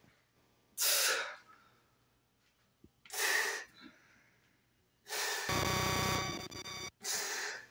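A man breathing out hard four times with the effort of exercise repetitions, short hissing breaths about two seconds apart. The third breath, about five seconds in, is longer and partly voiced.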